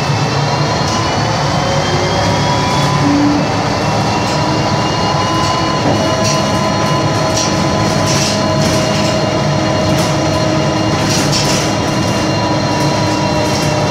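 Ikarus 260.46 city bus running under way, with its Rába D10 diesel and Voith Diwa automatic gearbox: a steady engine drone with a whine that rises slowly, then drops to a lower pitch about six seconds in, over light rattles.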